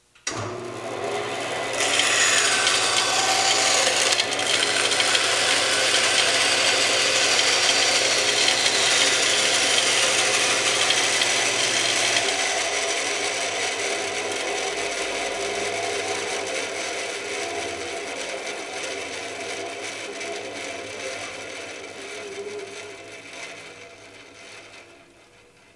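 Band saw starting up, its blade cutting into a thin board from about two seconds in. About halfway the motor hum stops and the blade coasts down, the running sound slowly fading away.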